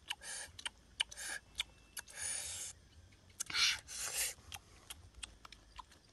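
A cooked egg rubbed and rolled in chili sauce in a stone mortar: a handful of short, wet rubbing and scraping strokes with small clicks between them, the loudest about three and a half seconds in.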